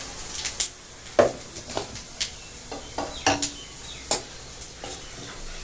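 A spoon stirring in a cooking pan, with irregular clinks and knocks against the pan over a faint sizzle.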